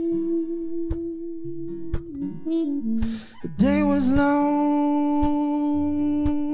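A band plays a slow Americana song led by acoustic guitar, with long held notes over it and a light percussion tick about once a second. About three and a half seconds in, a long wordless sung note slides up into pitch and holds.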